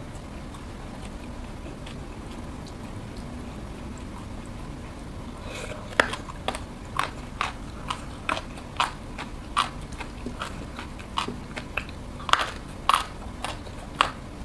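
A person chewing crunchy food with her mouth: a quiet first half, then from about six seconds in, sharp crunches about twice a second.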